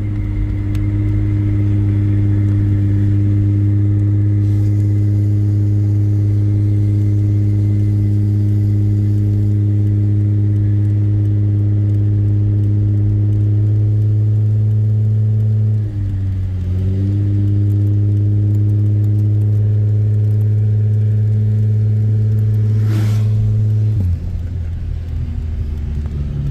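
Toyota Camry wagon's engine droning steadily inside the cabin while cruising at about 2,000 rpm; the car is a loud beater. About two-thirds of the way through the note briefly dips and wavers, then steadies, and near the end it drops in pitch and level.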